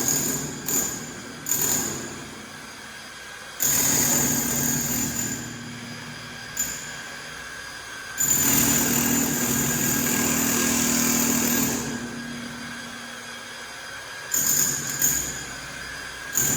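A power tool running in bursts with a steady whine: a few short blips of the trigger, then longer runs of several seconds each, with pauses between them.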